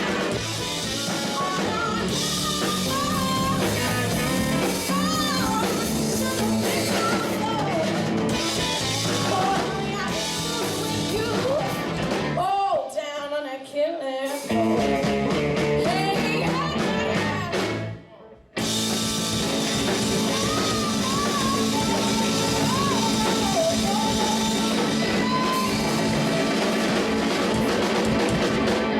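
Blues-rock background music: a sung vocal over electric guitar and drums, with a short break in the track about 18 seconds in.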